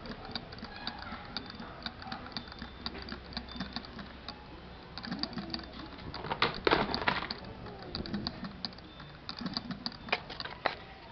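Evolution 10cc model engine making irregular clicking and rattling noises, with a louder stretch about six and a half seconds in. It is the noise from the engine being demonstrated: the engine sparks but will not start.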